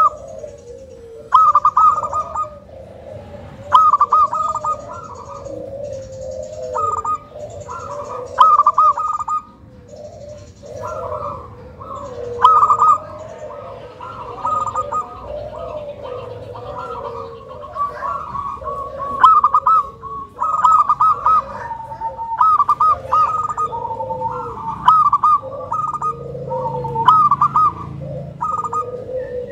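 Zebra dove (local perkutut) song: short bursts of rapid staccato coo notes repeat every second or two, over a lower, more continuous cooing.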